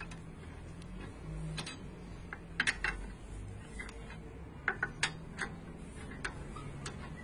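L-shaped wheel wrench clicking and clinking in a wheel bolt as the bolt is spun out by hand, in irregular sharp metallic ticks, with a small cluster about two and a half seconds in and several more near the end.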